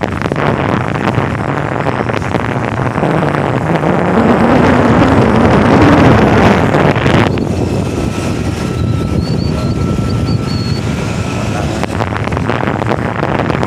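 Wind rushing over the microphone of a camera carried along an open road at speed, with vehicle and road noise beneath. About halfway through the hiss drops away for several seconds and the sound turns duller and quieter, then the rush returns.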